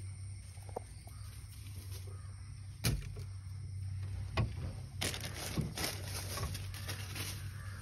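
Fish being handled and weighed in a steel pan on a scale: a sharp knock about three seconds in, another a second and a half later, then a cluster of clatters. A steady low hum runs underneath.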